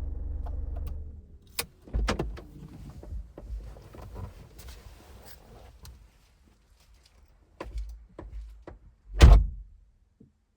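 Car interior: the low hum of the running car stops about a second in. Scattered clicks and knocks follow, then a car door shuts with one heavy thud near the end.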